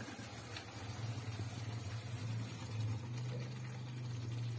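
Onion-tomato gravy simmering in a steel wok on a gas stove, with a steady low hum underneath and no sharp sounds.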